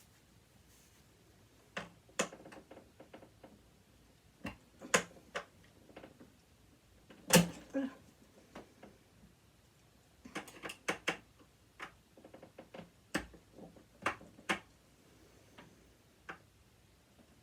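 Hand tools clicking and knocking against the parts of a sewing machine being taken apart, in scattered irregular taps, with one louder knock about seven seconds in.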